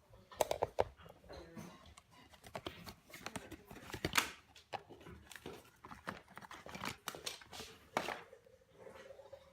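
Packaging being handled and unwrapped: irregular crinkling and rustling with sharp clicks and knocks.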